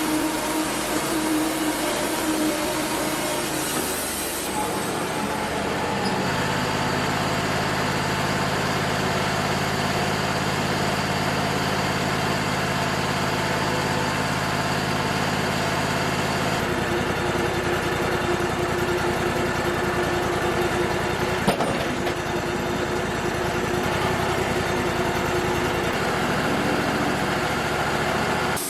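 Wood-Mizer LT35 portable sawmill's engine running steadily, its pitch shifting a few times, with one sharp click about two-thirds of the way through.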